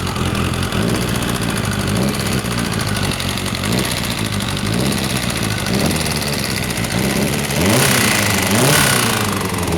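Kawasaki ZZ-R1100 D7's inline-four engine idling with several short throttle blips, its pitch rising and falling, then two bigger, louder revs near the end. The owner is recording it for an abnormal engine noise.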